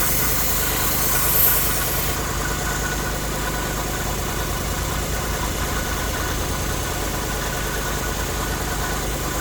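Belt grinder's motor running with a steady hum, a loppers blade grinding on the belt with a high hiss that stops about two seconds in as the steel comes off the belt.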